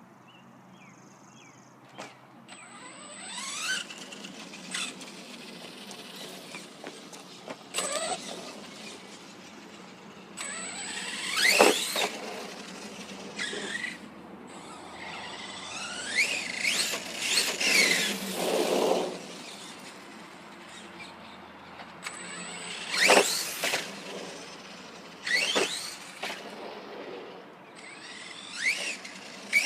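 Electric motor of a Redcat Earthquake 8E RC truck whining in repeated bursts, its pitch sweeping up as the truck accelerates and dropping off between runs, over tyre and ground noise.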